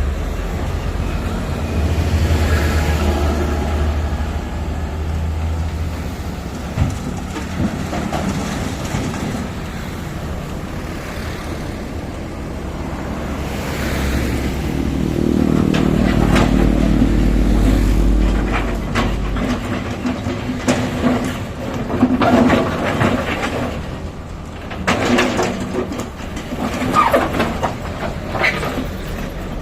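Heavy diesel construction machinery running with a low rumble that grows louder and heavier in the middle, followed by a series of metallic knocks and clanks.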